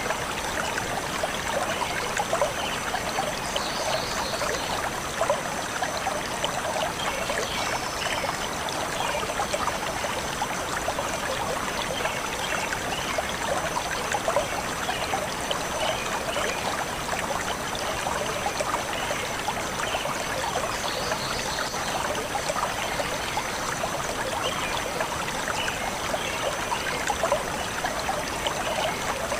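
Shallow forest stream flowing and trickling steadily over stones, with a few brief high chirps from birds now and then.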